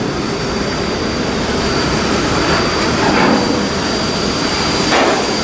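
Steady, loud machinery noise from steel hull block assembly work in a shipyard, with a constant high whine and a couple of brief swells.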